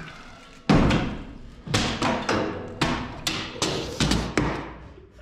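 Wooden deck boards being kicked loose from an old steel flatbed frame: a series of six or seven sharp thuds and knocks, the first about two-thirds of a second in, the rest coming roughly every half second to a second.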